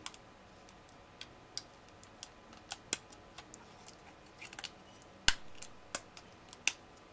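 Scattered light clicks and taps from fingers handling a small circuit board and its flex-cable connector, the loudest about five seconds in.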